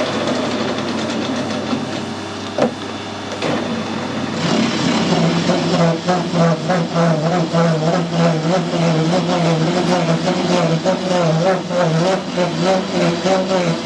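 Metal lathe cutting brass with a high-speed-steel radius form tool plunged straight in. About four seconds in, a loud, pitched, wavering chatter sets in and keeps on, caused by the very wide cut.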